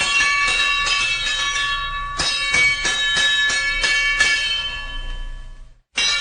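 Fire alarm bell ringing with rapid repeated strikes. About four seconds in it stops being struck and rings out, fading to a brief silence, then starts ringing again right at the end.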